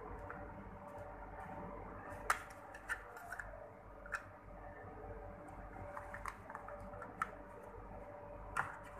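Scattered clicks and light knocks of hard plastic parts being handled, snapped together and set into a welding fixture, over a steady low machine hum.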